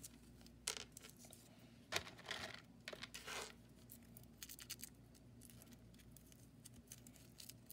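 Faint rustles and light clicks of fingers threading a Froot Loop cereal ring onto twine and brushing the table, a handful of them in the first three and a half seconds, then only quiet room tone.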